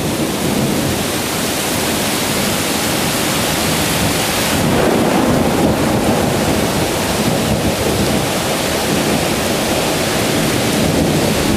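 Heavy downpour, a dense steady hiss of rain falling on the lawn, trees and porch.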